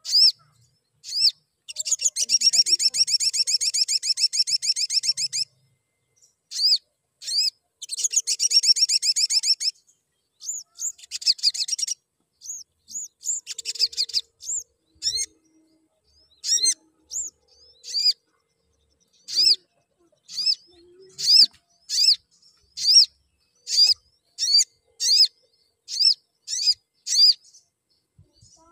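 Male olive-backed sunbird singing: two long, rapid trills of high chirps in the first ten seconds, then shorter trills, then single sharp chirps about once a second.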